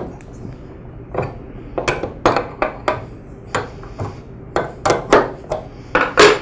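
Steel wrench clicking and clinking against a pressure washer pump's thermal relief valve as the valve is loosened: about a dozen irregular sharp metallic knocks, the loudest clank near the end.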